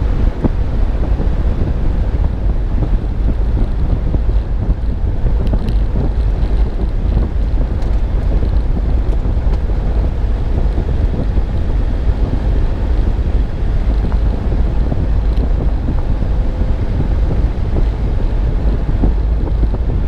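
Wind rushing over the microphone of a camera mounted on the outside of a moving car: a steady, loud rumble, heaviest in the low end, with no let-up.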